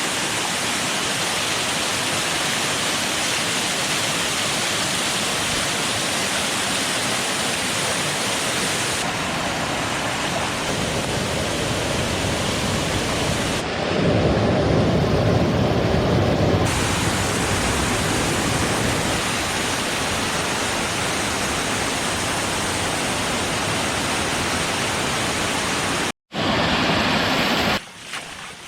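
Steady rush of falling water, monsoon rain or streams, in several abruptly cut segments. It is louder and deeper for a few seconds in the middle and cuts out for an instant near the end.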